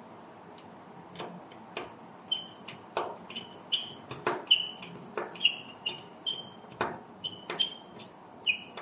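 Irregular small clicks and light taps of a screwdriver and wire against a circuit-breaker panel's metal box and terminals, about two a second, many with a short high ring.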